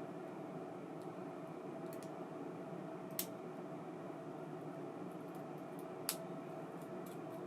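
ABU Ambassadeur 2500C baitcasting reel's spool spinning freely with a steady whir, with two sharp clicks about three seconds apart.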